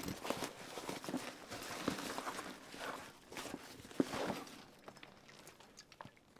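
A small soft six-pack cooler being pushed down into a larger cooler bag and then pulled back out: fabric rustling and scraping with irregular soft knocks, and one sharp tap about four seconds in.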